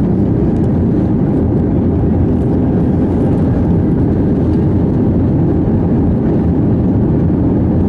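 Steady cabin noise inside an Airbus A320 during descent, heard from a window seat over the wing: an even, low rush of jet engines and airflow.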